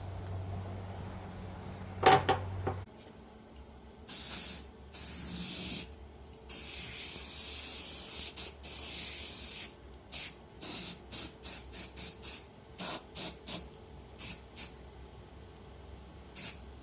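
Gasless flux-core MIG welder arc hissing and crackling in bursts as tack welds go onto cracked steel: a few runs of one to three seconds, then a quick string of a dozen or so short tacks, each a fraction of a second. A single sharp knock about two seconds in is the loudest sound, and a low hum stops soon after it.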